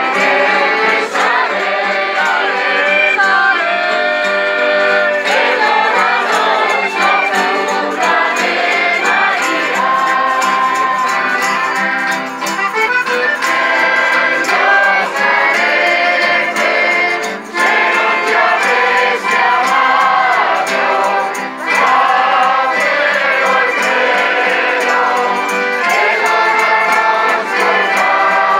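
A crowd singing a song together in chorus, accompanied by an accordion and acoustic guitars, continuously.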